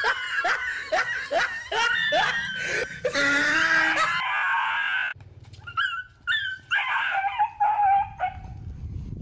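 A frightened dog yelping and crying: a quick run of short rising yelps, about three a second, then one long drawn-out cry, and after a short pause a few more shorter yelps.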